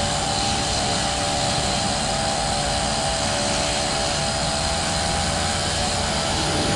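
Outboard motor of a small boat running at a steady speed under way, a constant engine drone with no change in pitch.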